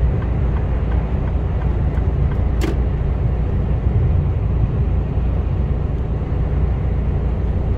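Steady drone of a loaded Mercedes Actros lorry cruising at motorway speed, heard from inside the cab: a constant low engine and road rumble with tyre noise. A single short sharp click about two and a half seconds in.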